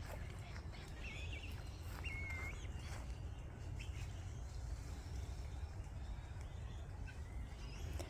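Quiet outdoor ambience with a steady low rumble and two short, thin, high bird chirps about one and two seconds in.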